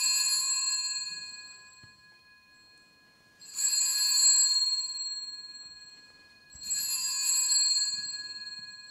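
Altar (sanctus) bell rung three times at the elevation of the consecrated bread: once at the start, again about three and a half seconds in, and again about six and a half seconds in. Each ring is a bright, high, bell-like tone that fades away over two to three seconds.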